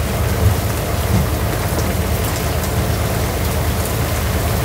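Rain falling steadily on a boat's deck hatch, heard from inside the cabin, with a steady low rumble underneath.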